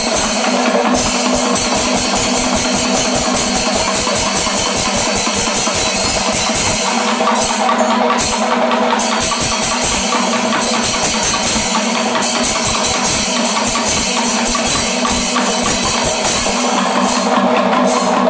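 Panchavadyam, Kerala's temple percussion ensemble, at full intensity in the kalasham of its second tempo: dense, fast timila and maddalam drum strokes over constant ilathalam cymbal clashing, with a held horn-like tone beneath.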